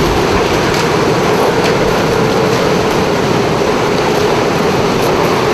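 Hurricane wind blowing hard: a loud, steady rushing noise with a faint low drone under it.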